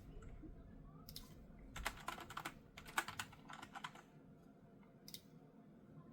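Typing on a computer keyboard: several short runs of keystrokes over the first few seconds, then a single click near the end.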